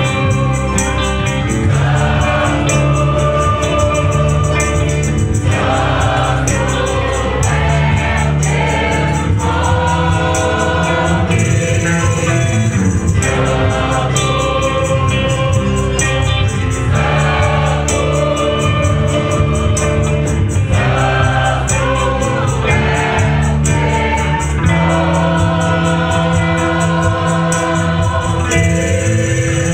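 Mixed youth choir singing a gospel song together with instrumental accompaniment: a strong bass line and a steady, quick percussion beat.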